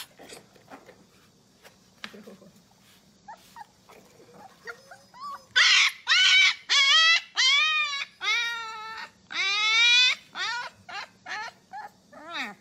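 Husky puppy crying in a run of about a dozen high yips and whines, each rising then falling in pitch. Softer calls start a few seconds in, the loudest come in the middle, and the calls get shorter and quieter toward the end.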